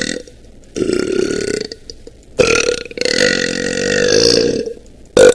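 A woman belching loudly, one burp after another: a burp about a second long a second in, then a long drawn-out belch of more than two seconds, and a short, very loud burst near the end.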